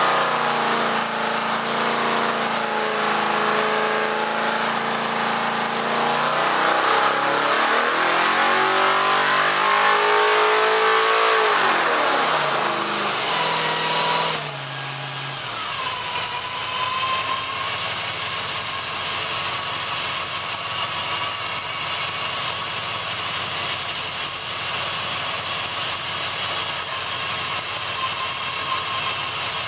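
565ci big-block Chevrolet V8 race engine running on an engine dyno. It revs up sharply and comes back down. About halfway through, the engine note gives way abruptly to a steady rushing noise with a faint whine.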